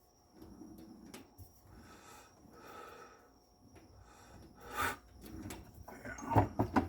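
Tools and parts being handled on a workbench: soft rubbing, a short sharp scrape about five seconds in, then a quick clatter of knocks near the end, the loudest.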